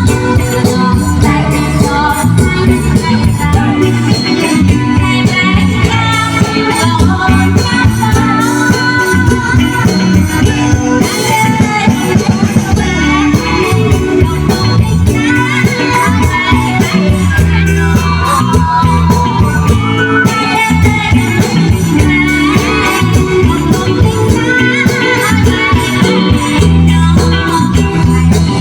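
Khmer romvong dance song: a steady, fast beat kept by a shaker and percussion over a bass line and melody.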